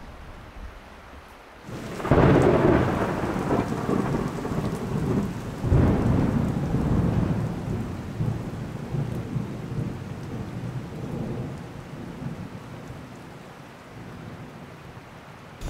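Two rolls of thunder over steady rain. The first comes suddenly about two seconds in and the second near six seconds, and each fades out slowly.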